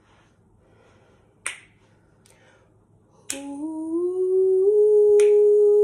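Finger snaps keeping a slow beat, about one every two seconds. About three seconds in, a woman starts humming one long held note that rises slightly and then holds steady over the snaps.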